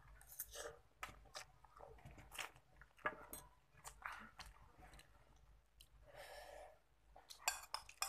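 Close-up chewing and mouth sounds of a person eating spicy instant noodles with rice: irregular soft clicks and smacks, with a longer breathy sound about six seconds in.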